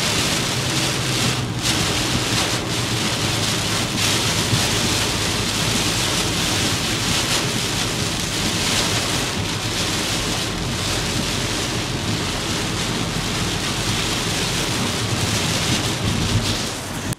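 Heavy hurricane rain and wind on a truck being driven, a loud steady rush with a low hum underneath. The sound drops suddenly at the very end.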